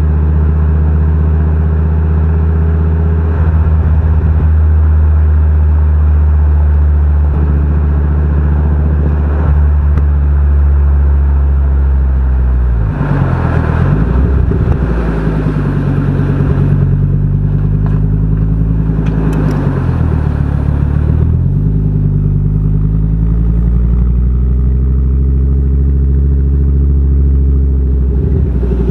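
Fiat Coupe 20v turbo's turbocharged inline five-cylinder engine running steadily at low revs, its pitch dipping and climbing back a few times as the revs change.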